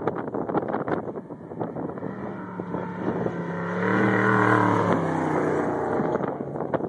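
An off-road race vehicle's engine approaches at speed, passes close and fades away, with wind buffeting the microphone as it starts to build.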